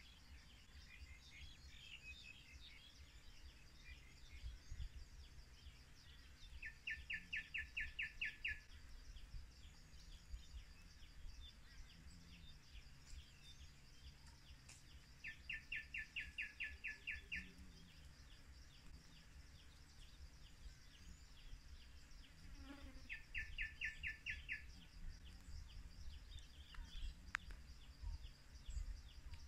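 Faint, steady high-pitched insect trill from the surrounding vegetation. Every eight seconds or so it is joined by a lower pulsed call of about a dozen rapid notes lasting under two seconds.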